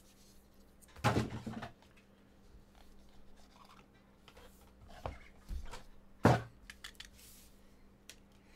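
Cardboard trading-card box being handled: a lid lifted off and a sleeve slid off an inner box, with small taps and scrapes. There are a few knocks, the loudest a sharp thunk about six seconds in as the box is set down.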